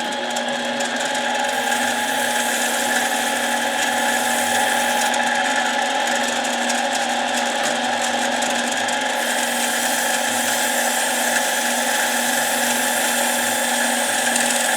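Harbor Freight mini lathe running at a steady speed with sandpaper held against the spinning metal part: an even motor whine under a continuous sanding hiss.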